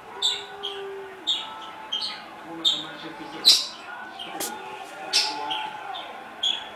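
Kitten sneezing in a rapid series of short, sharp sneezes, roughly two a second, a few much louder than the rest.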